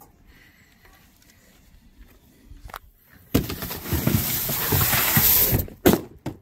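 A long cardboard box dragged out across a ribbed pickup bed floor: a loud scraping, crackling rush starting about three seconds in and lasting roughly two seconds, then a couple of sharp knocks as it is set down.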